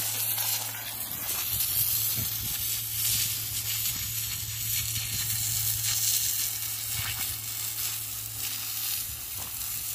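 A thin, pressurised jet of water spraying from the tube nozzle of a homemade air-pressurised plastic-bottle water gun, hissing steadily as it spatters onto dry dirt.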